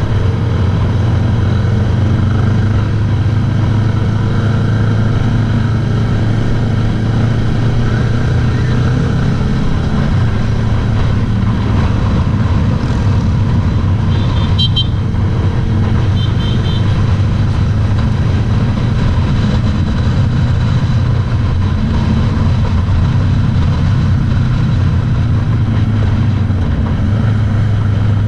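Motorcycle ridden along a road, heard from on the bike itself: its engine runs steadily at cruising speed with road noise and passing traffic. A little past halfway there are two short high beeps.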